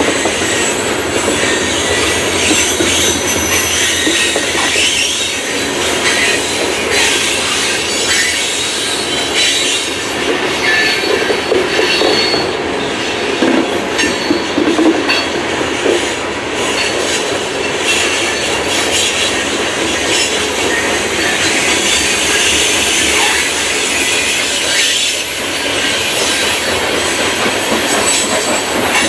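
Loaded open-top coal cars of a long freight train rolling past: steel wheels running on the rail in a continuous heavy rumble and rattle. A thin high-pitched wheel squeal comes and goes.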